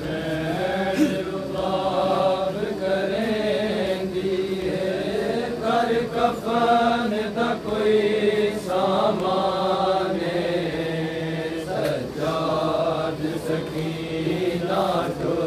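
Several men's voices chanting a noha, a Shia mourning lament, in a slow, drawn-out melody without instruments.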